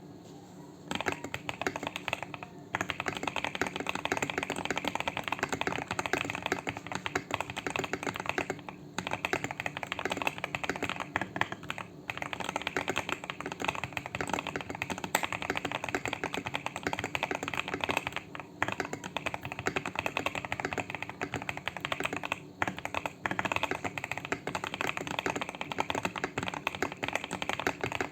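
Fast, continuous typing on a Weikav 75 Pro mechanical keyboard with Akko Cream Blue Pro switches: a dense stream of key clicks that starts about a second in, broken by a few short pauses.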